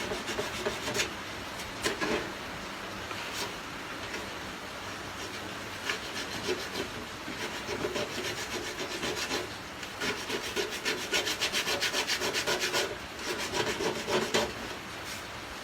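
Hand abrading of the metal of a refrigerator evaporator around a puncture with sandpaper or a nail file, cleaning the surface before repair. Irregular rubbing strokes, with a fast run of short, even strokes about ten seconds in.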